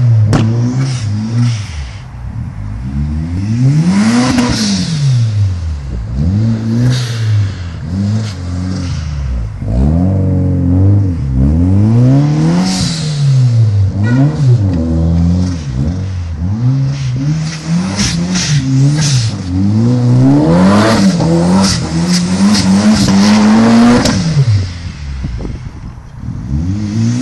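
Toyota Celica GT-Four's turbocharged 3S-GTE four-cylinder engine revving hard and falling away again and again as the car spins and drifts on snow. There are bursts of hiss from the blow-off valve as the throttle lifts. The engine is held high for several seconds near the end before dropping.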